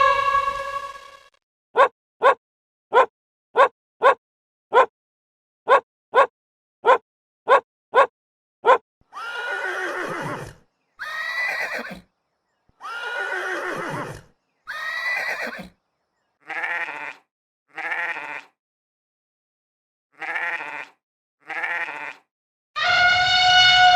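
A series of animal calls: about a dozen short clipped calls, then four longer calls of about a second each that fall in pitch, then six shorter calls in pairs.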